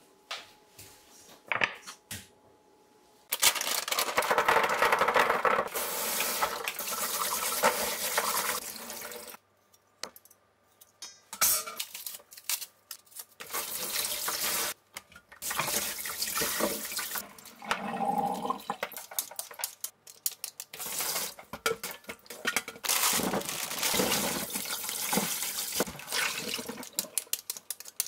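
Kitchen tap running and splashing into a steel bowl in a stainless-steel sink while hands rinse food under it. The water comes on about three seconds in and is turned off and on again several times, with short clicks and knocks before it starts.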